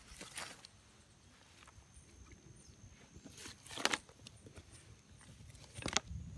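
Quiet soft scuffs and rustles of footsteps on loose garden soil among pepper plants, the clearest about four and six seconds in, over a faint steady high tone.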